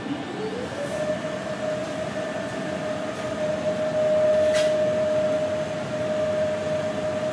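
Elekta Versa linear accelerator gantry rotating: the drive's whine rises in pitch over the first second as it speeds up, then holds one steady tone over an even mechanical hum.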